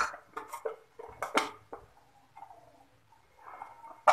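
Kitchen utensils and spice containers being handled: a few short clicks and knocks in the first second and a half, then a quiet stretch, then a sharper click near the end.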